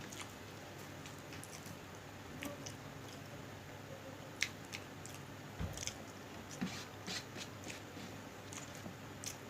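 Faint eating sounds: someone chewing khichdi, with scattered short clicks and smacks that are denser in the second half.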